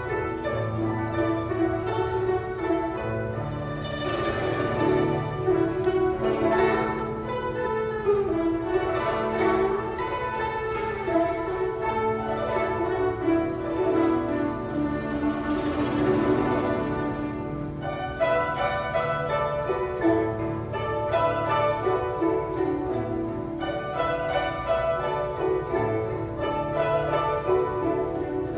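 Guzheng ensemble playing: many plucked zither strings in a busy melody over steady low notes.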